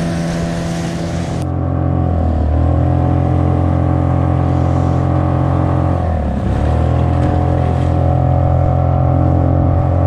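Outboard motor running steadily at speed. Its note dips briefly and recovers twice, about two and six seconds in.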